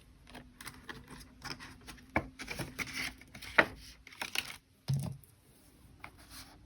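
Paper cash and cash envelopes being handled and tucked away: scattered soft rustles and light taps, a few of them sharper.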